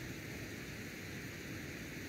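Steady hissing background noise with no distinct events.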